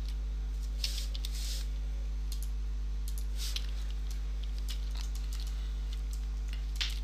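A few scattered clicks from a computer mouse and keyboard as a point is picked and moved in a CAD program, over a steady low hum.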